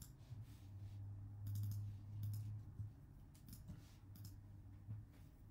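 Computer mouse and keyboard clicks in several small clusters, over a steady low hum.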